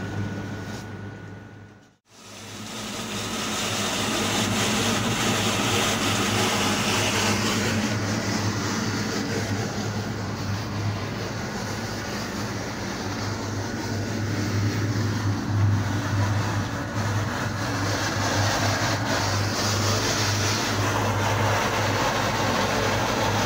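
Drain-cleaning machine running steadily with a constant low hum under the hiss of a high-pressure water jet spraying. The sound fades out briefly about two seconds in, then comes back.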